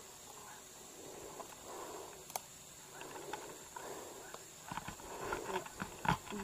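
Faint outdoor background at a jungle-edge stream: soft rustling with a steady thin high-pitched tone, one sharp click a couple of seconds in, and a run of small clicks and ticks near the end.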